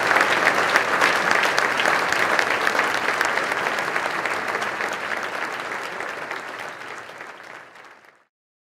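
A large audience applauding, many hands clapping together; the applause slowly dies down and cuts off to silence near the end.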